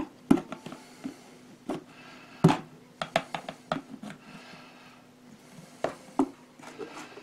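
Metal rod knocking and scraping inside an upturned metal can of trap dip: a run of irregular sharp clicks and clanks, spaced from a fraction of a second to a couple of seconds apart.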